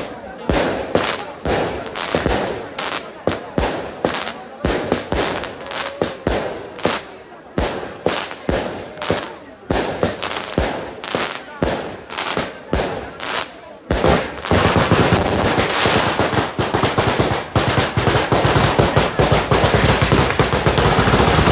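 Daylight fireworks: aerial shells bursting with sharp bangs, roughly two a second. About fourteen seconds in, a ground firecracker battery starts, its reports coming so fast they run together into a dense, continuous crackle of bangs.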